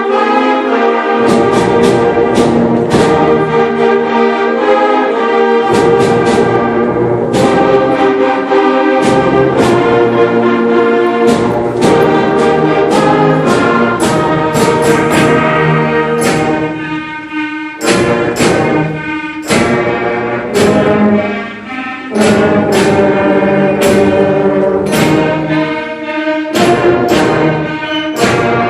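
A school concert band playing a piece. Sustained brass and wind chords are punctuated by frequent sharp percussion strikes, with a couple of short breaks in the sound about two-thirds of the way through.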